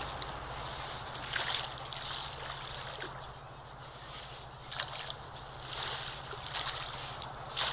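A German shepherd digging in beach sand with its front paws: irregular scratchy bursts of scraped and flung sand, over a steady low rumble.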